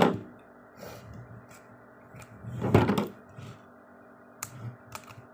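Hands working at a wrapped notebook's packaging, trying to get it open: a burst of rustling and handling noise at the start, another about three seconds in, and a few sharp clicks near the end.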